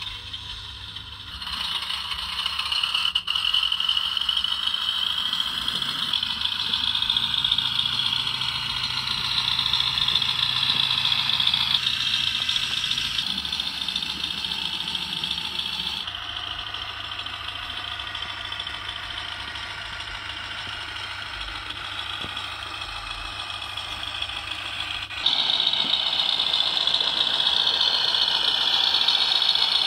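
Machinery running steadily with a rattle and a low hum. The sound changes abruptly several times, growing louder near the end.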